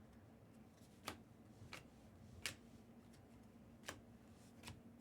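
Five light, sharp clicks over quiet room tone: trading cards being flicked and handled as a pack is sorted through.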